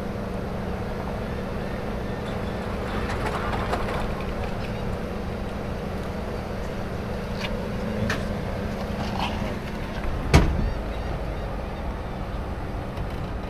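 A vehicle engine running steadily at idle, with a single sharp knock about ten seconds in.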